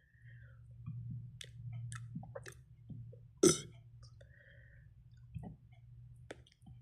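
A person's mouth and throat noises: scattered clicks and wet smacks, with one short, sharp, louder throat sound about three and a half seconds in, over a faint steady low hum.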